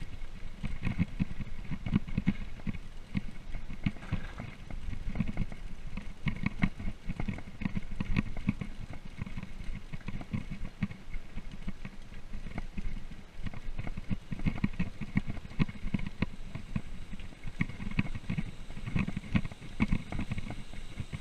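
Mountain bike rolling fast over a rough gravel road: a steady rumble with constant irregular bumps and rattling clicks from the bike.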